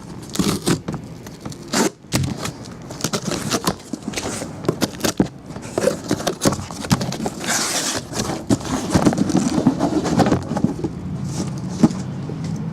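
Cardboard card boxes and their plastic wrapping being handled: a run of scrapes, knocks and crackles, with a longer rustle about three-quarters of the way through.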